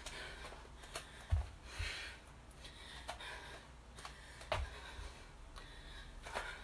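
Bare feet stepping and landing on an exercise mat during lunges, giving a few soft, low thuds at irregular intervals with faint rustling between.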